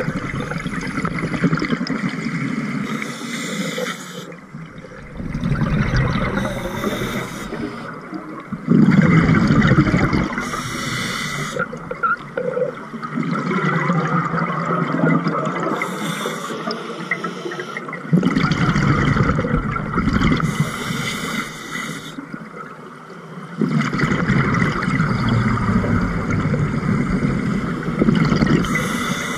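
Scuba diver breathing through a regulator underwater: a short hiss of inhaling through the demand valve, then a longer, louder rush and rumble of exhaled bubbles, repeated for several breaths in a slow, even rhythm.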